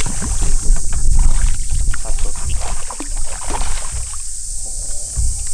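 Hooked largemouth bass fighting near a boat and splashing at the surface, with loud low thumps and knocks of handling on the boat through the fight.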